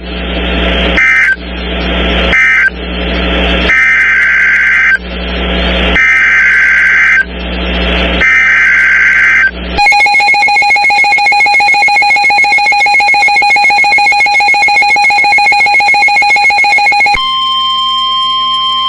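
Emergency Alert System header on weather radio: a run of shrill warbling SAME data bursts with radio hiss between them, then a steady alert tone from about ten seconds in that switches to a different steady tone near the end, announcing a new severe thunderstorm warning.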